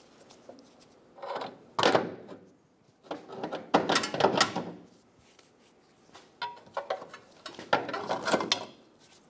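Rusty steel lower control arm of a Hyundai Sonata clunking and scraping against its mounts as it is wiggled and worked loose by hand, in several separate bursts of metal rattling and knocking.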